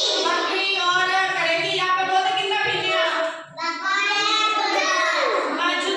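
A child singing, the voice held on long sung notes, with a short break a little past halfway.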